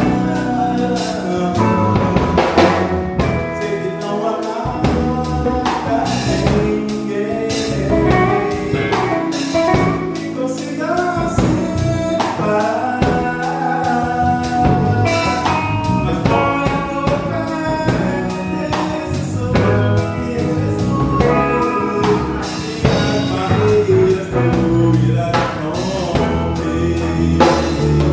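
A band playing a song with singing, drum kit and guitar, with a steady drum beat throughout.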